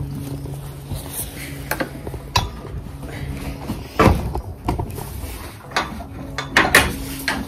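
A series of sharp clinks and knocks from gear being handled, the loudest about four seconds in, over a steady low hum.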